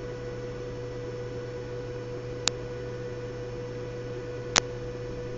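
Steady electrical hum with a steady higher tone, broken by three single sharp clicks about two seconds apart.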